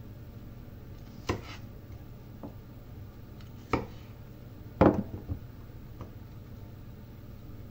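Kitchen knife cutting through a cucumber onto a cutting board: three sharp chops, the loudest about five seconds in, with a few lighter taps between them.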